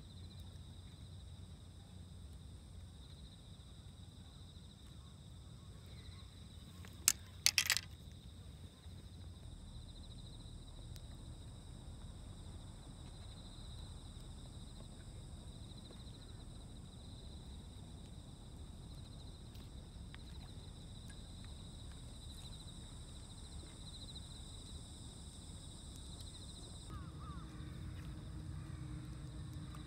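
Faint outdoor ambience: steady high-pitched insect chirring over a low rumble, with a brief cluster of sharp clicks about seven seconds in.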